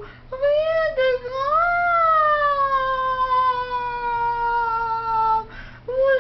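A high-pitched human voice wailing without words: a few short rising cries, then one long drawn-out note that slowly falls in pitch, and short cries again near the end, in lament over a broken-off dental crown.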